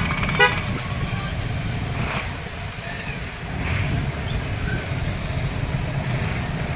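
Road traffic: motor vehicles running and passing, a steady low rumble.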